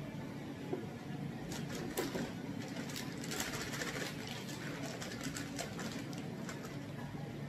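Crinkling plastic salad bag as loose spinach and mixed greens are shaken out of it into a plastic storage container: many quick crackles from about a second and a half in until near the end, over a steady low hum.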